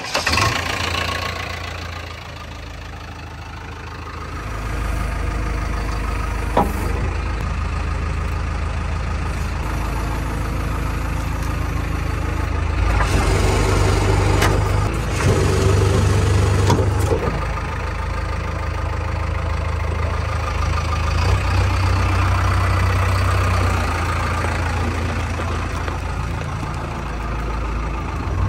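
Heavy machine's diesel engine, just started with the key, running steadily at idle. It gets somewhat louder a few seconds in and stays that way.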